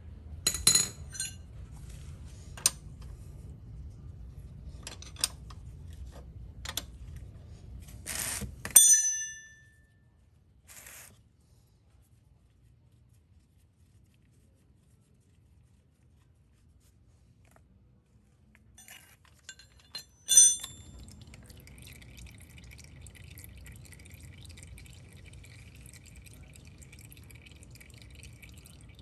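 Small metal parts and tools clinking, with a few sharp clicks and two louder ringing metallic clinks, one about nine seconds in and one about twenty seconds in. The parts are a scooter's oil drain plug and oil filter screen cap, handled during an oil change.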